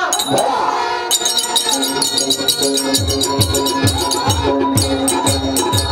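Folk-theatre ensemble music: rapid jingling rattles from about a second in over a steady held tone, joined about three seconds in by a drum beating about twice a second.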